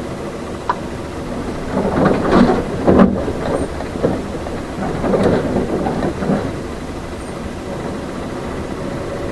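Inside a small city bus: steady engine and road rumble, with a sharp click under a second in and a run of rattling knocks and clatter from about two to six seconds in.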